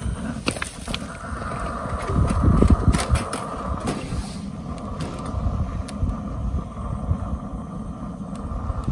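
Low rumbling of a burning homemade stainless-steel pellet stove, with wind on the microphone, swelling about two to three seconds in. A few sharp metal clicks, the loudest around three seconds in, as the firebox door is latched tight.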